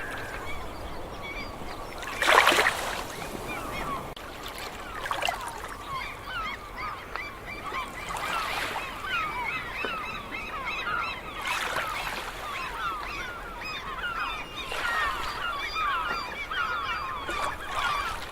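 A large flock of gulls calling, many short overlapping calls at once, with a short loud rush of noise about two seconds in.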